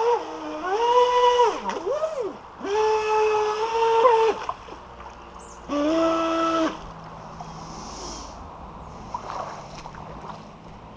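Electric motor of a small 3D-printed radio-controlled water jet boat whining in three bursts, its pitch rising and falling with the throttle. It cuts off about seven seconds in, leaving a low hiss of moving water.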